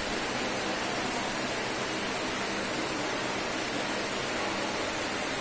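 Pedestal electric fan running: a steady rushing of air with a faint low motor hum underneath.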